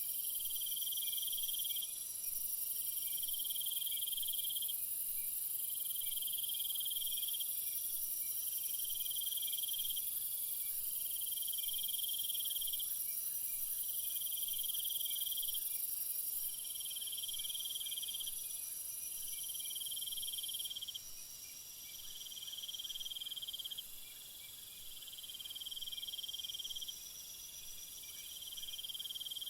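Night-time jungle insect chorus: a dense, steady high-pitched insect drone with crickets trilling, and a lower repeated chirp phrase about once every second and a half, each lasting about a second. The chorus gets a little quieter in the later part.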